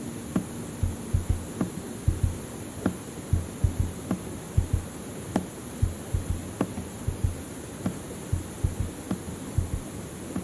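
Heartbeat sound effect: low double thumps in a slow, regular beat, about one pair a second.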